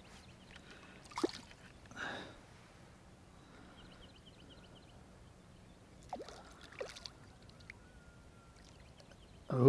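Quiet water sounds from a hooked fish swirling at the surface beside a kayak, with a few faint clicks and knocks. Near the end a man's voice gives a loud drawn-out "ooh".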